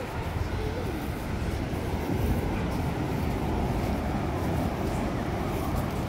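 Wind buffeting the microphone in a steady low rumble, over the wash of surf on the shore.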